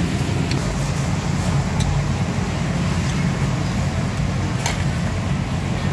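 Steady low rumble of street background noise, with a few faint clicks.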